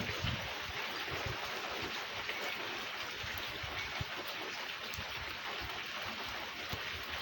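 Rain falling in a storm: a steady hiss with scattered sharp ticks of drops striking a surface.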